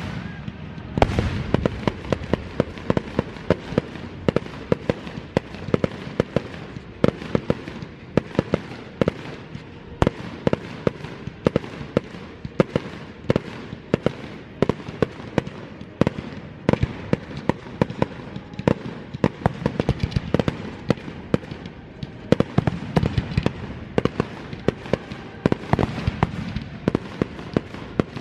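Fireworks display: shells and cake shots bursting overhead in a dense, irregular run of sharp bangs, several a second, over a continuous rumble and hiss.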